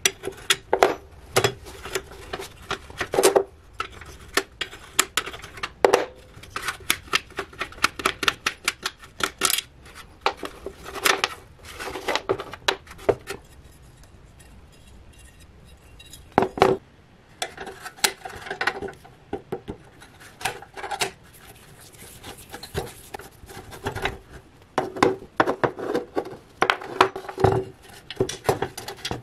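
Metal clinks, taps and scraping from hand disassembly of a rusty steel two-burner propane camping stove: a leg being worked off at its bolt and a screwdriver at the body's corner. The clatter is irregular, with a quieter stretch midway broken by a single sharp knock.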